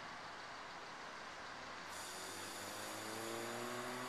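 Gas hissing steadily out of a shaken 2-litre bottle of birch beer through its loosened cap. The hiss starts suddenly about halfway through, with a faint rising whine under it.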